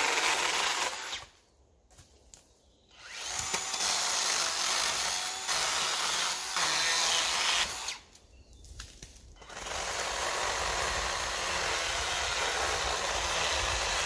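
Makita DUC252Z twin-18 V cordless chainsaw running in three bursts while cutting branches, stopping twice for a second or two between cuts.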